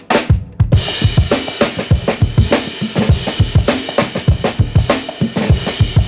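Background music with a drum kit keeping a fast, steady beat of kick and snare.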